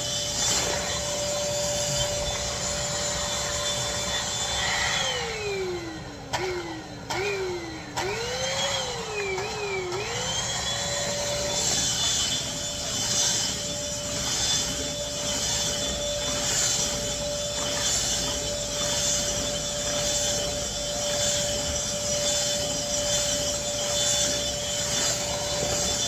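Bissell 3-in-1 Turbo corded stick vacuum running with a steady motor whine. About five seconds in its pitch sinks and jumps back up several times, with a few clicks, before it settles to a steady whine again.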